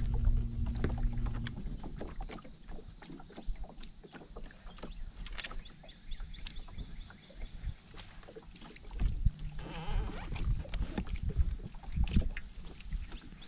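Small waves lapping and slapping irregularly against the hull of a bass boat. A steady low hum stops about a second and a half in.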